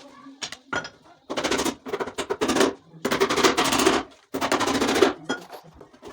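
A power tool working wood in three bursts of about a second each, each a fast, even rattle.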